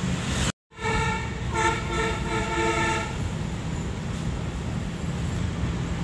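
Telolet multi-tone bus horn on the tour bus ahead sounding a short tune of chord notes for about two seconds, starting about a second in, over the steady road and engine noise inside the following car.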